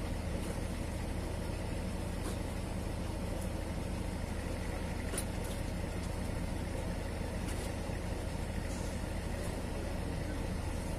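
Truck engine idling steadily, with a few faint knocks as watermelons are tossed, caught and set down on the load.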